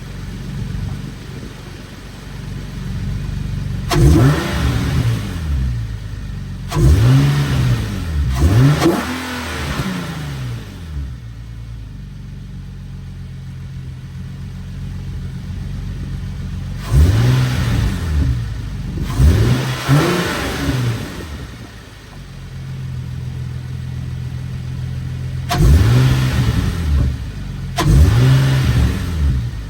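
Infiniti G37 sedan's 3.7-litre VQ37VHR V6, fitted with Stillen Gen 3 long-tube intakes, idling and being blipped. Each rev climbs and falls back to idle, in three bursts of two or three.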